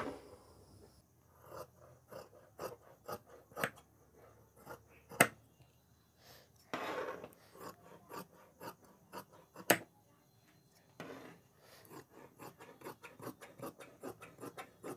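Tailor's shears snipping through fabric in a run of short cuts, the blades clicking as they close. A few clicks stand out louder than the rest, about five and ten seconds in.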